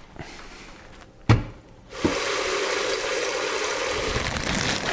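A single sharp knock about a second in, then water running steadily from a kitchen tap into the sink around the lidded brew kettle, filling its ice bath to cool the wort.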